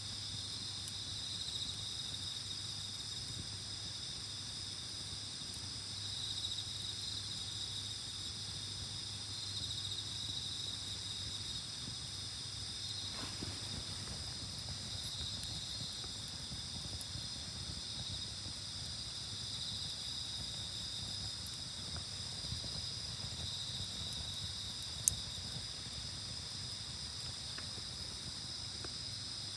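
A night chorus of crickets, several kinds trilling steadily at different high pitches, one of them pulsing gently. A single sharp crack sounds near the end.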